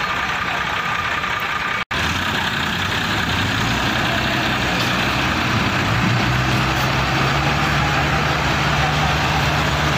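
Diesel engines of several Massey Ferguson 375 tractors running together, with a brief audio dropout about two seconds in. About halfway through they grow louder and settle into a steady low drone as the tractors pull forward in line.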